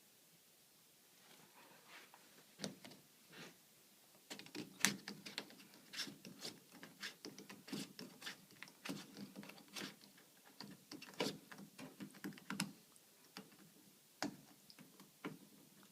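Irregular light clicks and knocks of hand handling, sparse at first and thick from about four seconds in until near the end.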